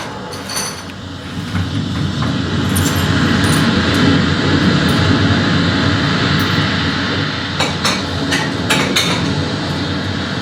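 A steady low rumbling wash of noise that swells in the middle, with scattered sharp clinks about half a second in, near three seconds, and a cluster near the end.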